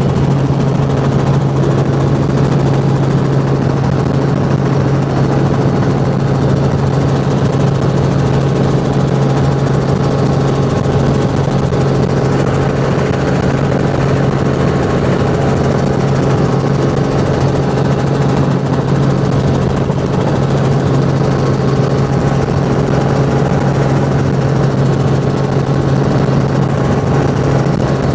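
Helicopter in flight, heard from inside the cabin: a loud, steady drone with a strong low hum.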